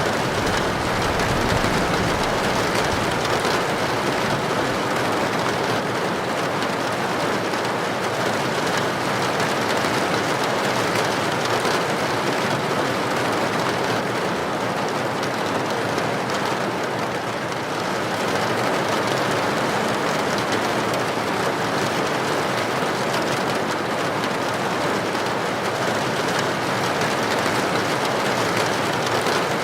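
Heavy rain falling steadily on a tin roof, a dense, even hiss with no thunder.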